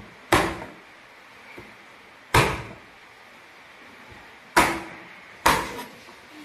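Four sharp thumps as the flat of a kitchen knife is slapped down onto garlic cloves on a plastic cutting board, crushing them, the strikes spaced a second or two apart.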